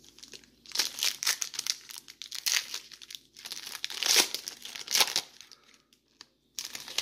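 Crinkling and tearing of a foil trading-card pack wrapper as it is opened, in a string of sharp rustles, with the cards rustling in the hands. There is a short pause about two thirds of the way through before the rustling picks up again.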